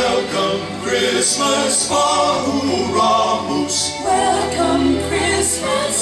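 Music with a choir singing, accompanying the dancers.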